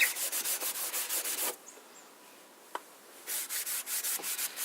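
00 steel wool scrubbing linseed oil into the old wooden side of a treadle sewing machine cabinet in rapid back-and-forth strokes. The rubbing stops for about two seconds partway through, with a single light click, then starts again.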